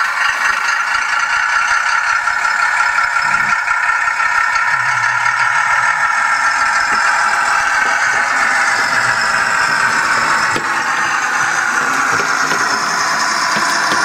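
Model locomotive's sound decoder (Doehler & Haass SD22A with a DR V 15 diesel sound project) playing a steady diesel engine running sound through a tiny 9x16 mm speaker. The tone is thin, with almost no bass.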